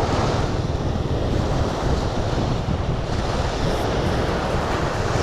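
Sea surf washing on the shore, mixed with wind rushing over the microphone: a steady noise heaviest at the low end.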